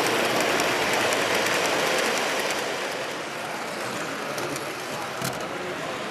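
O gauge three-rail model train running past on the layout track: a steady rolling rumble of wheels on rails that swells as the passenger cars go by close and then fades, with a sharp click about five seconds in.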